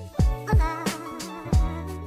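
Background music with a beat and a deep, heavy kick drum under sustained notes.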